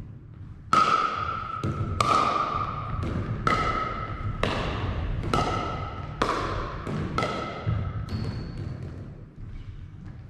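Pickleball rally: a hollow plastic ball struck back and forth with paddles, about seven sharp hits roughly a second apart, each with a short ringing ping that echoes in the gym hall. The hits stop a little after two-thirds of the way through.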